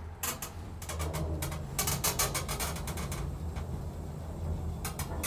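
Mid Western passenger lift car travelling down: a steady low hum from the drive, with spells of fast clicking and rattling, thickest about two to three seconds in.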